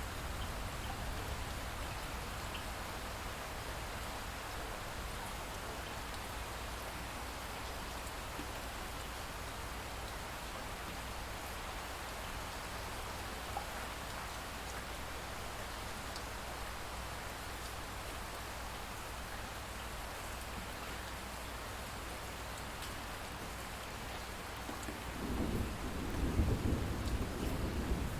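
Steady rain falling in an even hiss, with a low rumble of thunder building near the end.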